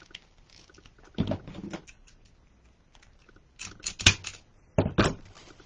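Deco mesh crinkling and rustling in short irregular bursts as it is handled and pushed into the wreath frame, with a sharp click about four seconds in.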